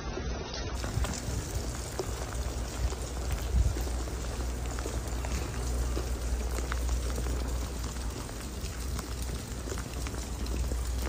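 Heavy rain falling on wet pavement and puddles, an even hiss with scattered small drop ticks over a low steady rumble.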